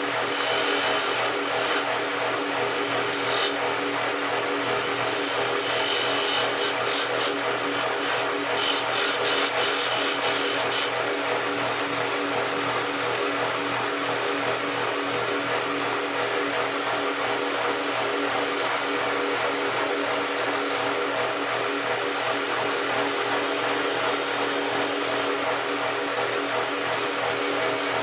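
Small lathe's motor running steadily with an even hum. A hand tool scrapes against the spinning workpiece in patches for about the first ten seconds.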